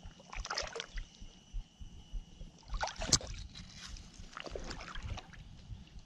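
Pond water sloshing and splashing right at the microphone, with three splashy bursts, the loudest about three seconds in, over low irregular thumps of water against the camera.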